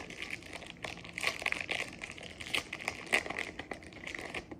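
Foil Pokémon booster pack wrapper crinkling in the hands as it is torn open, a dense run of irregular crackles.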